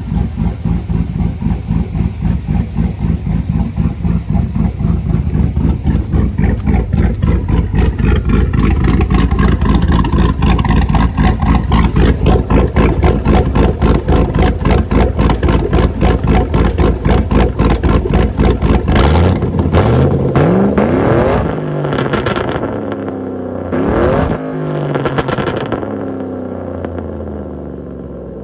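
Cammed 5.3-litre V8 in a Chevrolet Tahoe idling with a heavy, pulsing lope. About two-thirds of the way through it is revved twice, rising in pitch each time, then drops back and fades.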